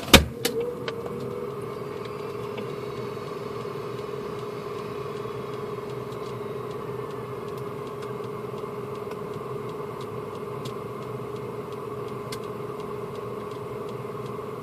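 A sharp click, then a steady mechanical hum with a constant pitch that does not change.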